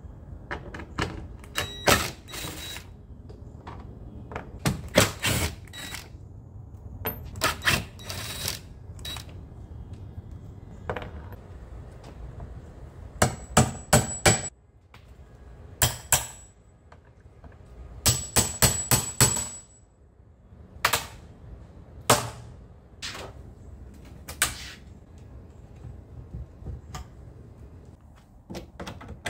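Hammer blows driving a flat pry bar under the front skirt of a wooden dresser to knock it loose: a long series of sharp metal-and-wood knocks, loudest in two quick clusters of four or five strikes around the middle.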